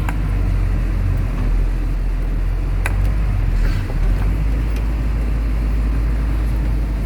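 Truck engine running steadily while driving, heard from inside the cab as a low drone, with one sharp click about three seconds in.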